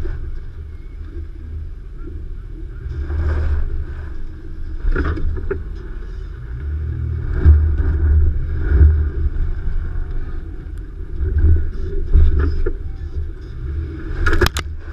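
Nissan Xterra crawling over rough off-road ground: a low engine and drivetrain rumble that swells and eases, with scattered knocks and clunks from the truck jolting over the terrain, the loudest near the end.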